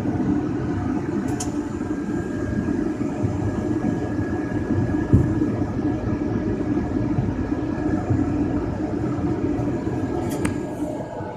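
Light single-engine propeller aircraft's engine and propeller running with a steady drone as the plane rolls along the runway, with a brief knock about halfway through.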